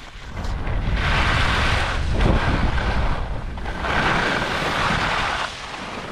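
Skis carving and scraping on groomed snow at speed, the hiss swelling twice, under wind rumbling on the camera's microphone.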